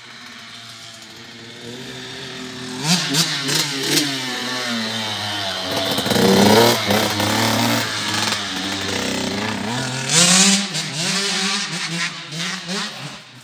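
Dirt bike engine revving up and down as it is ridden, the pitch rising and falling with the throttle. It grows louder from about two seconds in, is loudest around six and again around ten seconds, and drops off sharply at the end.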